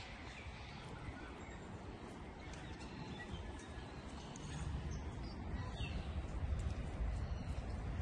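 Outdoor park ambience: a low rumble that grows louder about halfway through, with a few faint, distant bird calls.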